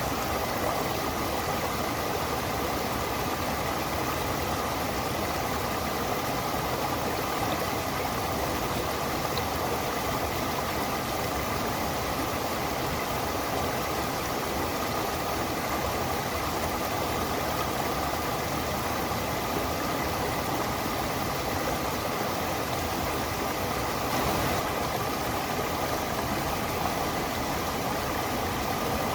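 Stream water running steadily: an even, unbroken rushing noise.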